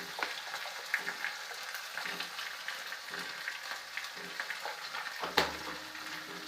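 Onion and ground-spice masala sizzling in hot oil in a kadai while it is stirred, with small ticks of the spatula against the pan and one sharper knock about five seconds in.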